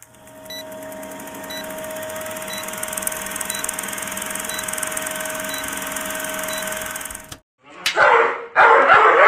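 Vintage film-countdown sound effect: steady projector-like hiss and hum with a faint short beep every second, cutting off suddenly after about seven seconds. Then, about a second later, a dog barks in loud bursts.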